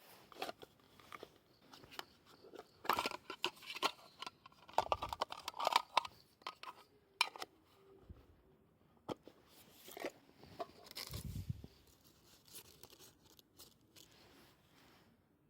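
Dry material crackling, snapping and rustling in irregular bursts, densest about three to six seconds in and again around eleven seconds, with scattered sharp snaps between.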